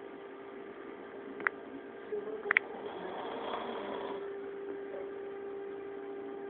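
Steady low electrical hum with faint background noise, broken by two sharp clicks about a second apart.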